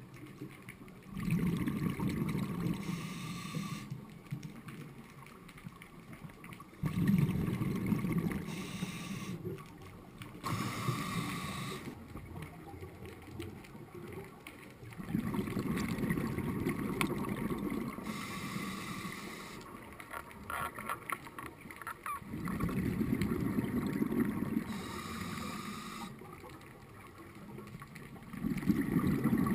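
Scuba diver breathing through a regulator, heard underwater: a low gurgling rush of exhaled bubbles every few seconds, about six times, with a fainter hiss of inhalation between them.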